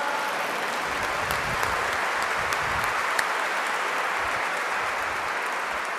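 Congregation applauding: many hands clapping in a steady, even patter, the listeners' agreement with the preacher.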